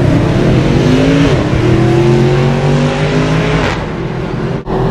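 Mercedes-Benz SLS AMG's 6.2-litre V8 accelerating hard past, loud, its pitch climbing through the revs. There is a brief drop in pitch about a second in, then it falls away near the end.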